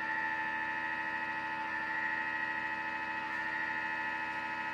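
Thermomix TM6 motor running with a steady whine, whisking egg whites into meringue.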